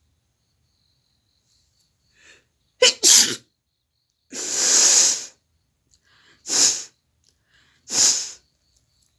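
A woman sneezing loudly four times in about five seconds. The second sneeze is drawn out for about a second.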